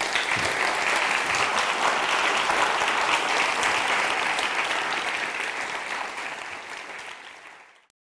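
A large seated audience applauding, many hands clapping together in a dense, steady patter that fades away near the end.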